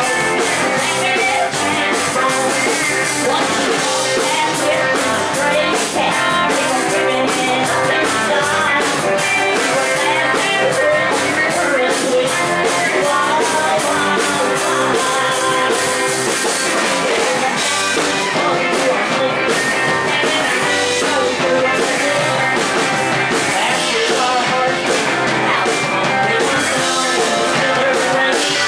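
Live rock and roll band playing loudly, with piano, guitar and a drum kit keeping a steady beat.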